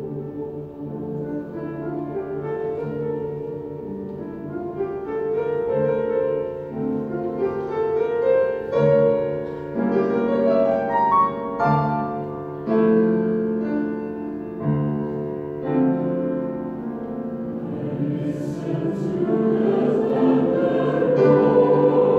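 Choir singing a slow, sustained choral anthem with piano accompaniment, the sound gradually swelling louder toward the end.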